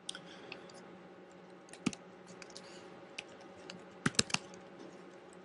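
Keystrokes on a computer keyboard as shell commands are typed: a few scattered clicks, then a quick run of several keys about four seconds in. A faint steady hum lies underneath.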